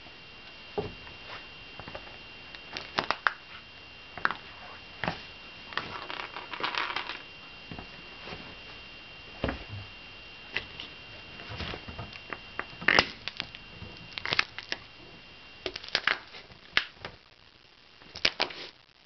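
Nike Shox sneaker stomping on dried fruit and a walnut on a stone floor, crushing them. Sharp cracks and crunches come at irregular intervals, with a longer crunching spell in the middle as the shoe grinds the pieces.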